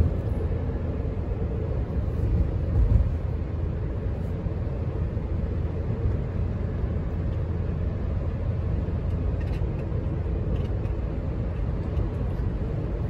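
Steady low rumble of a car driving along a road: engine and tyre noise heard from inside the cabin.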